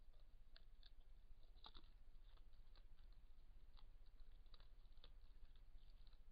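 Near silence from a trail camera's microphone: a steady low hum with faint, irregular clicks and ticks, a few per second.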